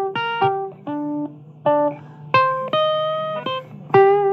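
Blues guitar playing a run of single plucked notes with no singing. The last note, about four seconds in, is held and wavers in pitch.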